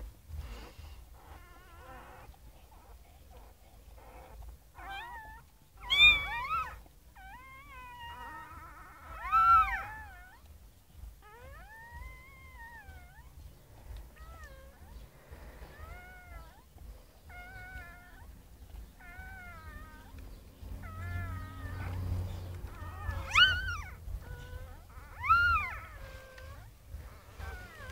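Newborn puppies crying: a string of short, high-pitched squeals that rise and fall in pitch, the loudest about six and nine seconds in and twice more near the end.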